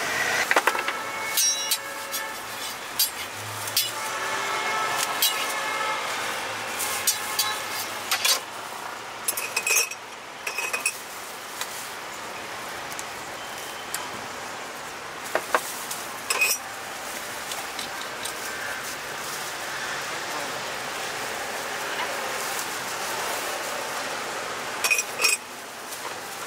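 Spoon and utensils clinking and tapping now and then while jam is spooned and spread on a crepe on the griddle, in small clusters of sharp clicks, over steady street traffic noise.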